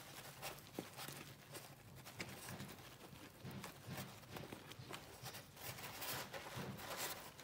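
Faint rustling and light, irregular clicks and taps from disposable-gloved hands working on a dissected cow's eye.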